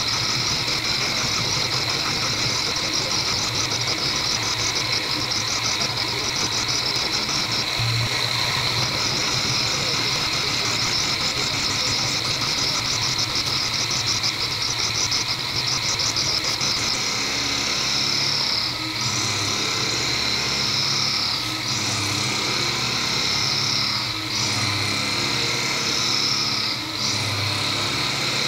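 Small end mill cutting F114 steel on an HBM 45 milling machine: a steady, high-pitched cutting whine with a fast even rhythm, dipping briefly several times in the second half. It is cutting without coolant, and the machinist expects the cutter to break.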